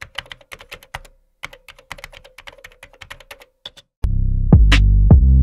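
Rapid keyboard typing clicks for the first three and a half seconds or so. About four seconds in, loud electronic music starts with deep bass notes and sharp drum hits.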